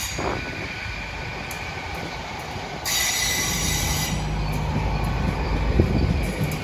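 A train moving through a station, with a steady high ringing from the rails and a high metallic squeal about three seconds in that lasts about a second. A low rumble builds after it as the train draws nearer.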